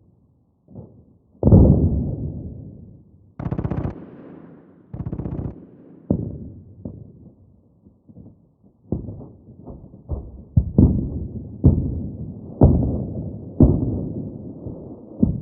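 Distant gunfire and explosions: heavy booms with long fading tails, two short bursts of rapid automatic fire a few seconds in, then a run of single shots, each ringing out.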